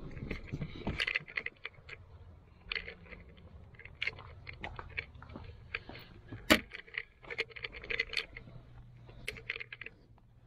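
Hands working amplifier wiring through a car's interior: irregular clicks, scrapes and rustles, with one sharp knock about six and a half seconds in.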